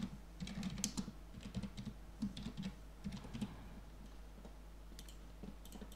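Computer keyboard being typed on: a faint, quick run of key presses that thins out after about three and a half seconds, with a few more clicks near the end.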